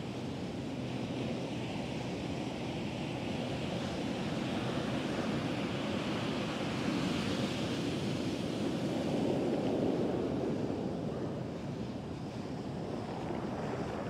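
Atlantic surf breaking and washing up the beach: a continuous rush of waves that swells to its loudest about nine to ten seconds in and eases off near the end. Some wind buffets the microphone.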